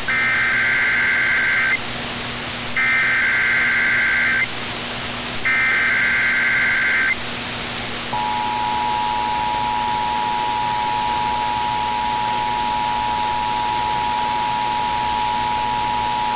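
Emergency Alert System tones received over the radio: three buzzy data bursts of the SAME header, each under two seconds, then from about eight seconds in the steady two-tone attention signal, all over a constant hiss. This sequence opens an EAS alert, here the North Carolina tornado drill and required monthly test.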